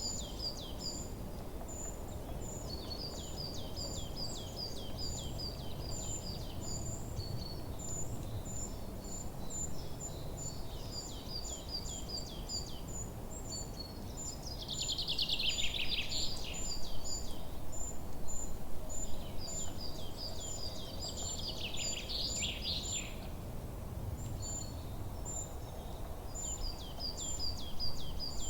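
Forest birdsong: songbirds repeating phrases of quick, falling notes every few seconds over a steady, evenly repeated high chip, with two louder, denser trills near the middle. A low, steady background rumble lies under it.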